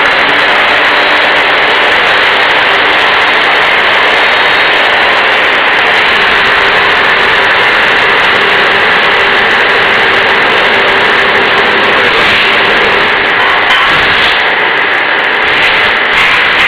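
Kalamazoo Industries S8D 8 x 60 inch, 7.5 hp belt sander running with a metal compressor housing held against the belt: a loud, steady grinding hiss. The sound turns more uneven about twelve seconds in, as the pressure on the workpiece changes.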